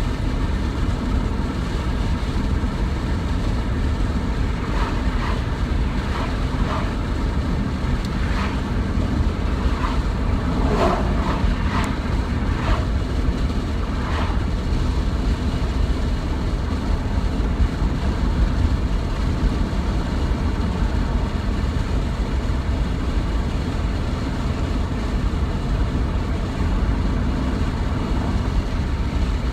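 Steady low rumble of wind buffeting the microphone over big surf breaking on the beach, with a few faint higher sounds between about five and fifteen seconds in.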